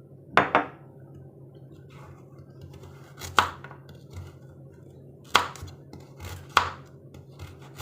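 A few sharp kitchen knocks of utensils or food against a hard worktop surface, spaced irregularly a second or two apart, over a low steady hum.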